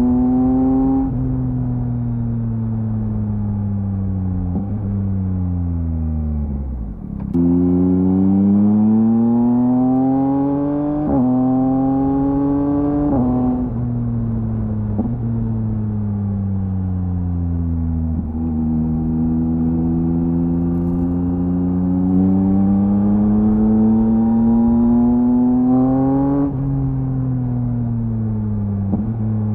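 2023 Yamaha MT-09's 890 cc inline three-cylinder engine through a LeoVince LV Race full exhaust, under way. The revs fall steadily for several seconds and jump suddenly about seven seconds in. They then climb with two quick upshifts that drop the pitch, fall away again off the throttle, rise once more, and fall near the end.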